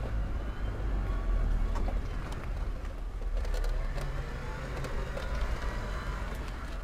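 Wheelchair rolling along a concrete ramp: a steady low rumble with scattered light clicks.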